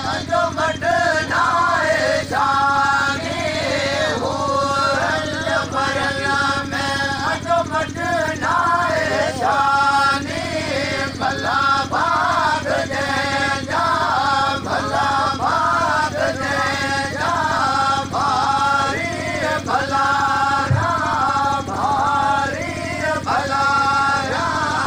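A man's voice singing a chant without instruments, in long held, wavering notes with short breaks between phrases. A steady low hum runs underneath.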